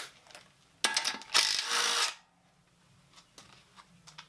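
A ratchet tool spinning a nut off a windage-tray stud on an LS engine block: a loud rattling run of about a second, with a few clicks before it and faint ticks after.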